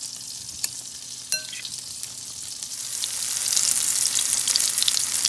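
A fork clinks against the bowl about three times as zucchini slices are turned in batter. From about halfway, battered zucchini slices sizzle loudly in hot oil in a frying pan.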